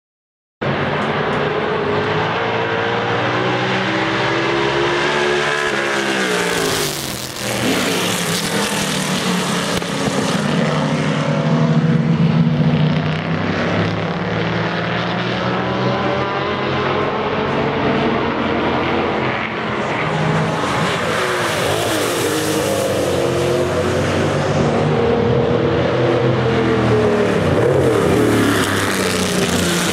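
Several racing sports cars' engines at speed, cars passing one after another with the pitch rising and falling, one dropping sharply as it passes about seven seconds in.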